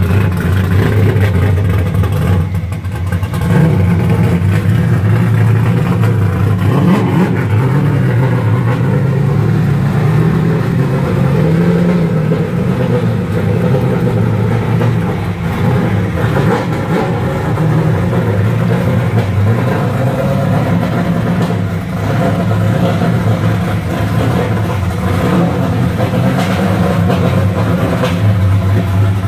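Custom-modified Nissan 370Z's 3.7-litre V6 engine running loud and steady, its note rising and falling with the throttle.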